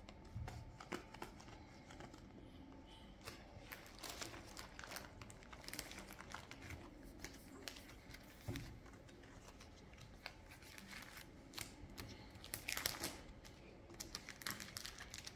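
Panini FIFA 365 trading cards being slid into the clear plastic pocket sheets of a binder album: faint, irregular crinkling and rustling of plastic and card, with a louder rustle about three-quarters of the way through.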